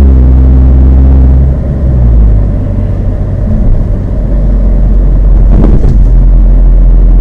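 2016 Mazda 3 GT's exhaust, through twin Spintech Super Pro Street 9000 mufflers with a K&N air filter fitted, running loud and steady. The engine note drops about a second and a half in and settles into a steady low drone, with a brief click near the end. Wind buffets the microphone.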